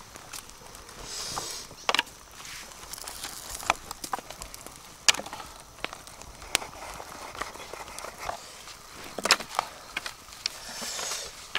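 Split bamboo slats clicking and knocking and banana leaves rustling as a grilled fish is taken out of its bamboo clamp, with a handful of sharp clicks spread through.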